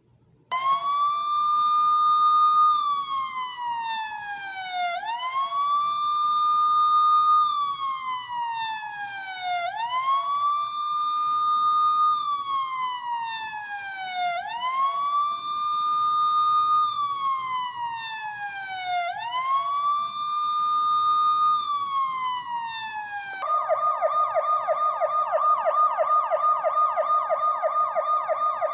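Electronic police siren sound effect from a 1:38-scale toy 2014 Chevrolet Camaro police car. First a wail rises quickly, holds, then slides slowly down, five times about every five seconds. About 23 seconds in it switches to a fast yelp that warbles up and down several times a second.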